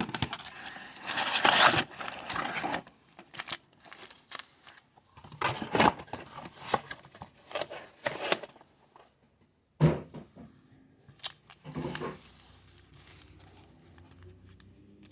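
Trading-card mega box packaging being torn open and handled: irregular tearing, scraping and crinkling, loudest about a second and a half in and again midway, then quieter near the end.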